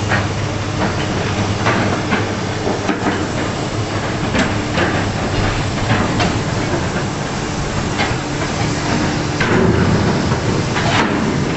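A heavy diesel engine running steadily under irregular metallic clanks and knocks, like heavy machinery working with steel parts or tracks.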